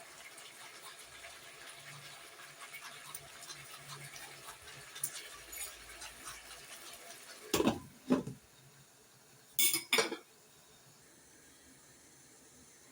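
Pots and dishes being handled while cooking: soft rustling and small clinks, then two pairs of sharp clanks, one pair about eight seconds in and another about ten seconds in.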